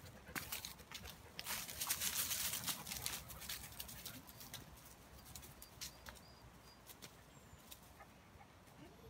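Footsteps crackling and rustling through dry leaf litter and twigs on a woodland path, dense and loudest for the first three seconds, then lighter and sparser.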